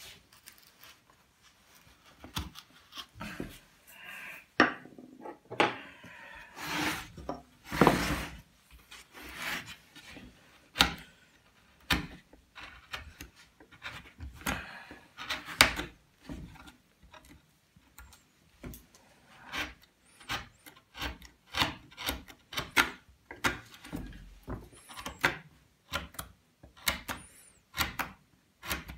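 Hand carving tools cutting and paring a wooden relief panel: many short, irregular scraping cuts with a few longer strokes.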